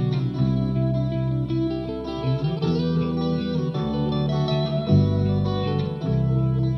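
Electric guitar playing sustained chords over a deep, held bass line, with the harmony changing about once a second.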